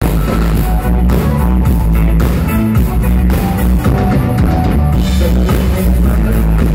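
Live rock band playing loud over a PA: drum kit, electric guitars and bass in a steady full-band groove.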